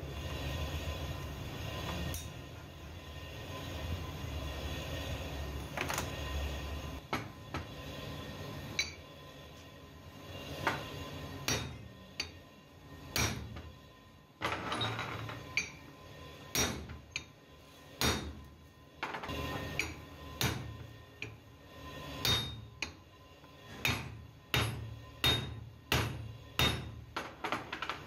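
Sharp metal-on-metal knocks as a truck driveshaft universal joint is worked on a steel block to drive out its bearing caps. After a stretch of handling clicks, the blows come in a steady run about once or twice a second through the second half.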